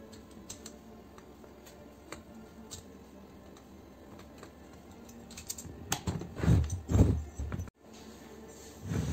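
Small scattered clicks and scrapes of a screwdriver working on a pressure washer's aluminium motor and pump housing. Then several loud, heavy thumps come close together about five and a half seconds in, as the metal unit is handled on the bench.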